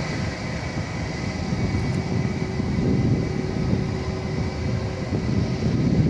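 Airbus A321's twin jet engines running at low power as the airliner rolls along the ground: a steady whine of several fan tones over a low rumble that grows louder in the second half.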